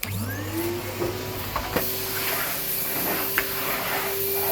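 Numatic Henry canister vacuum cleaner switched on: its motor whine rises as it spins up over the first second, then runs steadily with rushing air through the nozzle. A few sharp clicks are heard along the way.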